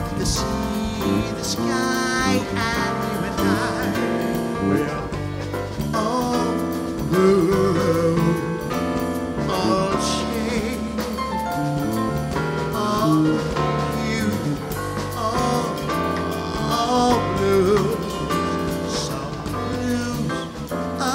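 A man singing with a live band of electric keyboard, electric guitar and drum kit, his voice wavering and sliding between notes over a steady low bass line.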